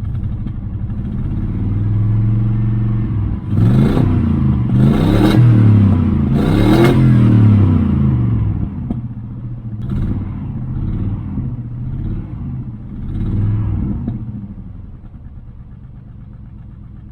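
Fuel-injected V8 running through side pipes, revved hard three times in quick succession, then given a few lighter throttle blips before settling back to a steady idle. The engine has a persistent misfire on its left bank whose cause is still unknown.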